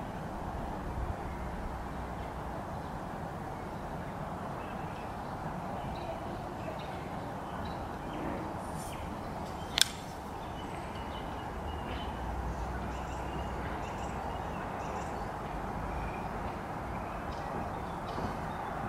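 Steady outdoor hiss with low rumbles at times and scattered faint bird calls. About ten seconds in comes one sharp click as the Chris Reeve Inkosi folding knife's blade snaps open against its titanium frame lock.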